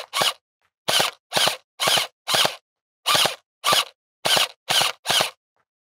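UnlocX V2 electric gel ball blaster pistol firing about ten sharp shots, roughly two a second, in short runs with brief pauses. The shots stop near the end.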